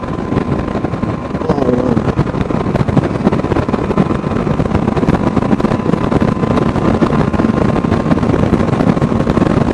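Motorcycle engine running steadily at road speed, heard from the rider's position with wind rushing over the microphone.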